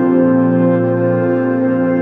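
Background music of sustained, held chords.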